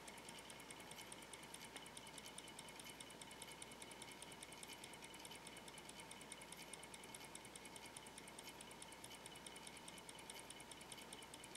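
Small model traction engine, a Mamod-style copy with a 3/16-inch bore and 3/8-inch stroke, running steadily. It makes a faint, rapid, even ticking from the engine and its gear train.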